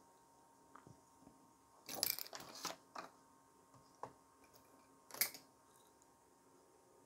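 Scattered light clicks and rustles of small objects being handled, with a short cluster about two seconds in and a sharper click about five seconds in.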